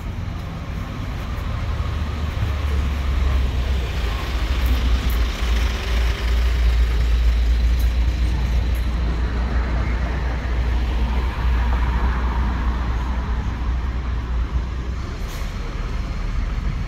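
City street traffic: an articulated city bus's engine running close by as the bus pulls along the road, over a steady low rumble of traffic, swelling and easing as vehicles pass.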